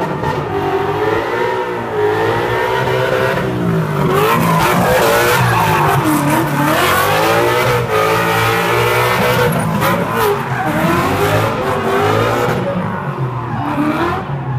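Ford Mustang drift car's engine revving hard, its pitch rising and falling again and again as the throttle is worked through the slide. The tyres squeal and skid under it as the rear wheels spin and smoke.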